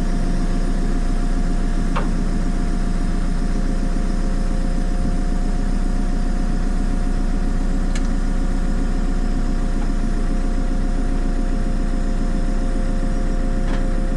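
JCB 3CX backhoe loader's diesel engine running steadily at idle, with a steady whine over it and a couple of faint clicks.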